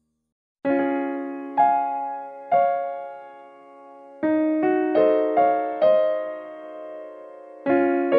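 Slow solo piano-style keyboard music: single notes and chords struck one after another, each left to ring and fade, starting after about half a second of silence.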